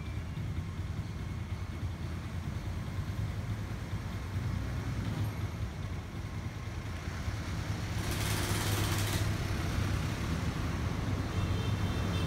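A low, steady engine hum, with a hiss lasting about a second some eight seconds in.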